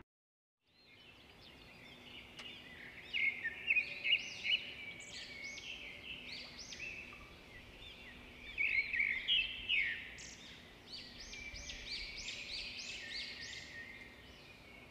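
Many birds calling at once in a dawn chorus, fading in after a brief silence: dense, overlapping, high chirps and short rising-and-falling calls.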